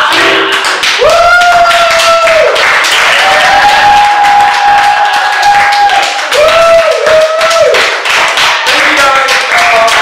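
Audience applauding with steady clapping, and cheering voices holding several long whoops over it.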